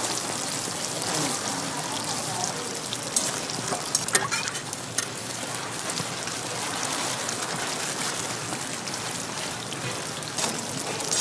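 Sweet millet pancakes frying in shallow oil on a flat griddle: a steady, rain-like sizzle, with a few sharp ticks about three to four seconds in.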